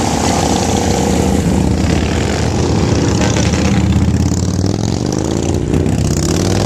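Motorcycle engines running as cruiser motorcycles ride slowly past one after another, a bike close by the loudest. About five seconds in, the engine note dips and then rises again.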